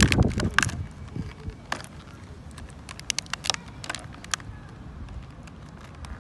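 Small clear plastic accessory bag crinkling and crackling in a child's fingers in scattered sharp crackles, after a low rumble in the first half-second.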